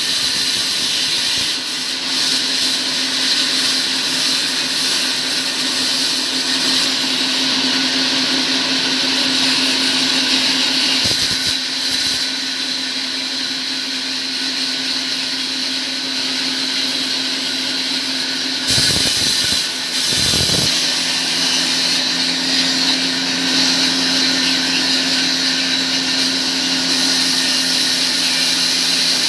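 A motor-driven tool or machine running steadily, with a constant hum under a strong hiss. It changes briefly about eleven seconds in and again for a couple of seconds near the twenty-second mark.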